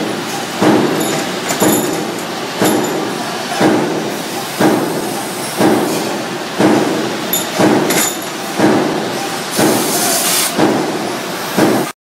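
Metalworking machine cycling with a regular clank about once a second as it works stainless steel rods, over a steady machine run, with bright metal clinks now and then. The sound cuts off suddenly near the end.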